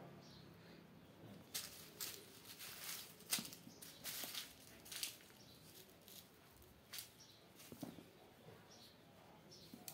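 Two kittens play-fighting: faint scuffling and rustling of their paws and bodies against the tiled floor and a cloth, in short irregular bursts, busiest in the first half.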